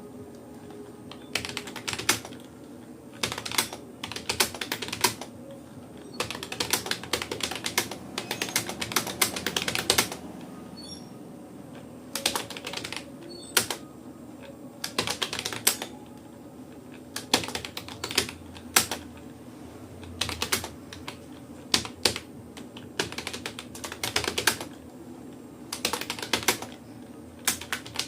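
Rapoo computer keyboard being typed on in bursts of rapid keystrokes, broken by pauses of a second or so, over a steady low hum.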